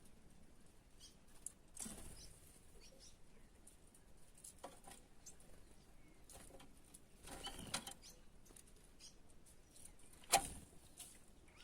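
Small birds at a water dish: scattered brief chirps with soft wing flutters, and a sharp tap about ten seconds in.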